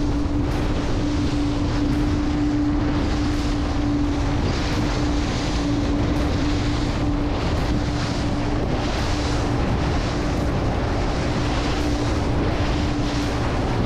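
Twin Evinrude 250 two-stroke outboards running steadily at cruising speed, a constant engine note over the rush of water along the hull and wind buffeting the microphone.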